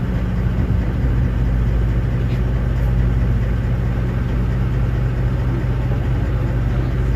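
Tour boat's engine running with a steady low drone, cutting off suddenly at the end.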